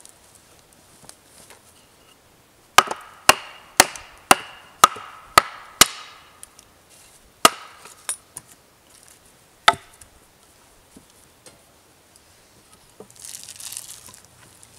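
Hatchet blade chopping into a wooden pole. A quick run of seven sharp blows about two a second, each with a brief ring, then three slower single blows. A short rustle near the end.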